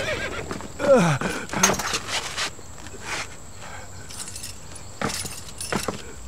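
Horse hooves and soldiers' footsteps on a dirt road, heard as scattered knocks and clicks. About a second in comes one short cry that falls steeply in pitch.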